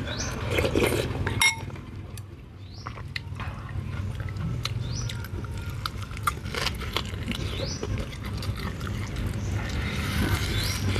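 Close-up eating sounds: chewing, with many small wet clicks. About a second and a half in, a metal spoon clinks against a ceramic bowl and rings briefly.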